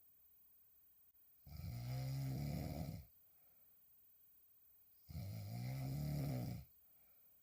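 A woman snoring loudly while sleeping on her back: two snores, each about a second and a half long, about three and a half seconds apart.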